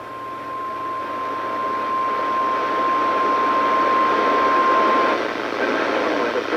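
NOAA Weather Radio 1050 Hz warning alarm tone: one steady tone over radio static, growing louder and cutting off about five seconds in. It is the alert that comes ahead of a warning broadcast, and a synthesized voice starts right after the tone stops.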